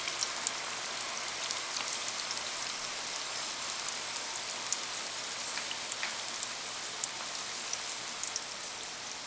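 Par-cooked potato fries frying in hot oil in an electric deep fryer: a steady sizzle dotted with many small sharp crackles and pops.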